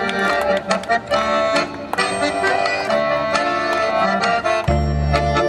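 Accordion-led folk dance music with a steady beat, the instrumental opening of the song, played over outdoor loudspeakers; a heavy bass comes in near the end.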